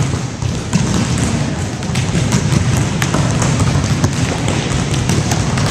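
Echoing gym din of volleyballs being hit and bouncing on a hardwood floor, with many short sharp knocks scattered through a steady background clamour.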